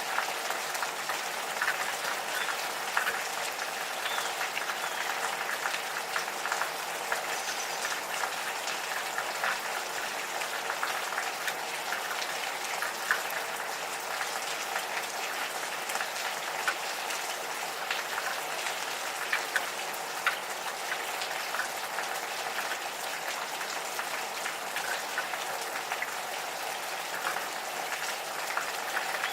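Gentle rain falling steadily, with many individual drops ticking through it.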